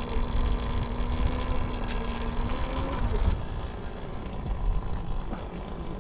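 Talaria XXX electric dirt bike being ridden: a steady motor whine over low wind rumble on the microphone. The whine rises slightly and then stops about three seconds in, leaving mostly the rumble.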